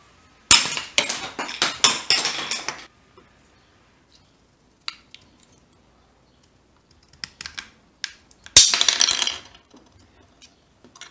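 A small Starbucks drink can crumpling and crunching in the jaws of a 3D-printed plastic screw clamp as the handle is twisted. There is a crackling run of crunches lasting about two seconds, then a few scattered clicks, then a second run of crunching about two-thirds of the way through.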